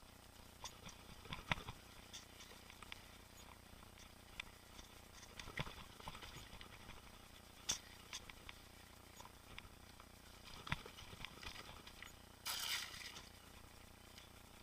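Boardman mountain bike riding along a trail: faint, irregular clicks and knocks from the bike and tyres over the ground, with a brief rush of noise about twelve and a half seconds in.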